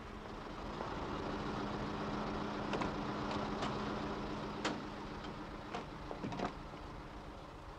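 A motor vehicle's engine running steadily, growing louder and then fading away. Over it come a few light clicks and a sharper click a little past halfway as a door is opened.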